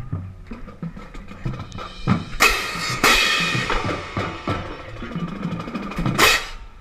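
High school marching drumline playing snare and bass drum patterns, with a pair of marching crash cymbals heard up close. The cymbals crash about two and a half and three seconds in and ring on, then crash again near the end.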